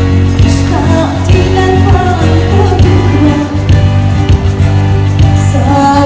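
Music with singing over a steady, sustained bass.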